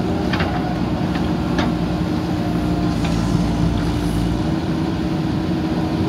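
JCB 3DX backhoe loader's diesel engine running steadily under load while the backhoe arm works the bucket into the mud, with a few short sharp knocks in the first couple of seconds.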